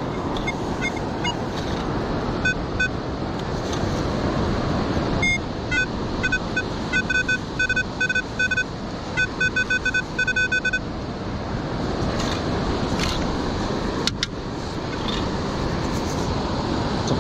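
Metal detector giving a run of short, high-pitched beeps in quick clusters, its signal that the coil is passing over a metal target; the beeping starts a couple of seconds in and stops a few seconds past the middle. Under it, a steady rush of wind and surf.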